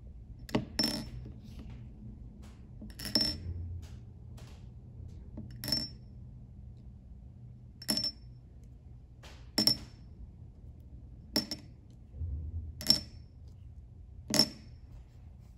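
Flat blue glass gems put one at a time into a small glass cup, each landing with a sharp glass-on-glass clink that rings briefly: about eight clinks, roughly two seconds apart.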